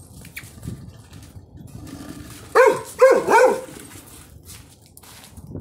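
Dog barking three times in quick succession about two and a half seconds in, each bark dropping in pitch.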